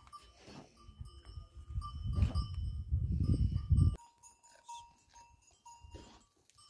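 Sheep in a farmyard, bleating now and then, over on-and-off ringing tones. A heavy low rumble close to the microphone fills the first four seconds and cuts off abruptly.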